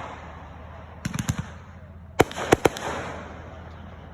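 Fireworks going off: two quick clusters of sharp bangs about a second apart, the second cluster louder, each fading away after the bangs.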